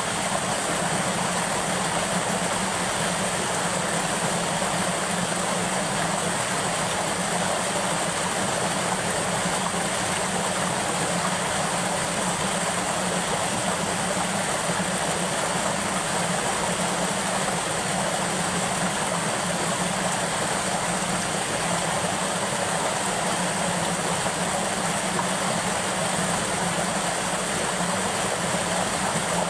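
Water rushing steadily over a small concrete dam spillway and down its apron.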